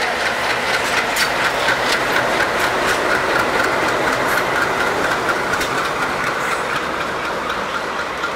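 Twin WDM3A ALCO diesel locomotives running past at close range, their engines giving way to passenger coaches rolling by, wheels clicking over the rail joints.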